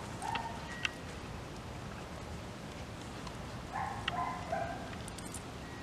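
A young chocolate Labrador retriever whining in two short bursts, high-pitched and steady in tone, once near the start and again about four seconds in, with a few sharp clicks among them and steady background noise.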